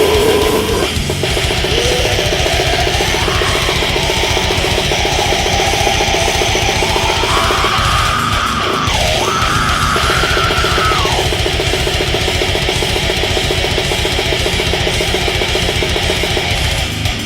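Brutal death metal: distorted guitars over very fast, dense drumming, with guitar lines sliding up in pitch twice, briefly breaking off near the middle.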